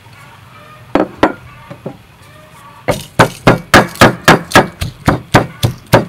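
Wooden pestle pounding chilies and lemongrass in a wooden mortar: a few separate knocks, then from about three seconds in a steady run of loud thuds, about four strokes a second.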